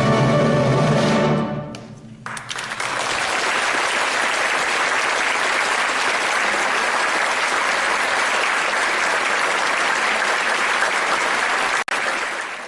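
Orchestra holding a final chord that cuts off about a second and a half in. After a short gap, the audience breaks into steady applause that runs on until it fades at the very end.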